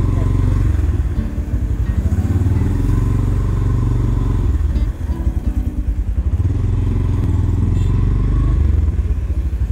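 Motorcycle engine running at low speed, heard from on the bike with a steady low pulsing beat; the engine note drops off briefly about a second in and again about five seconds in.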